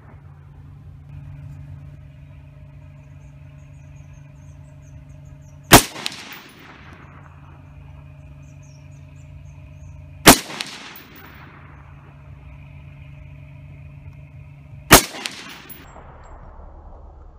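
Three single rifle shots from an AR-pattern rifle fitted with a titanium muzzle brake, about four and a half seconds apart, each sharp crack followed by a short echoing tail. A steady low hum runs underneath.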